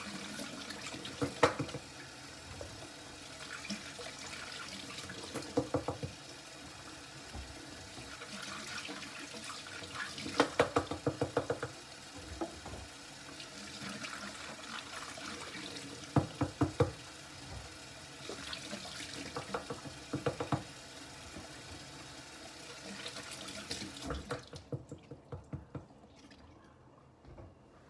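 Tap water running into a kitchen sink while pointed pepper halves are rinsed clean of their last seeds. Several bursts of quick knocks come from the peppers being handled. The water stops near the end.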